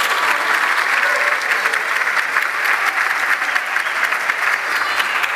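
Audience applauding, a steady mass of clapping.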